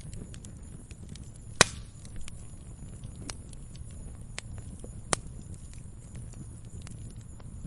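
Wood fire crackling: a steady low rush of burning with scattered sharp snaps and two loud pops, one about a second and a half in and another about five seconds in.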